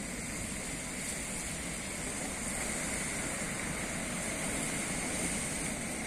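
Steady rushing noise of sea waves and surf, even and unbroken, with no single crash standing out.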